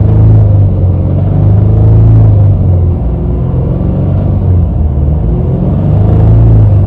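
Subaru Legacy BP5's 2.0-litre turbocharged EJ20 flat-four engine running with a steady, slightly wavering low rumble. This engine has a rattle that cleaning the air flow meter did not cure.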